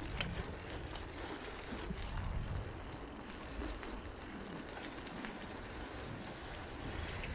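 Wind buffeting the microphone and a low rumble while moving along a paved street, with a car coming closer near the end. A thin, steady high whistle sounds for about two seconds in the second half.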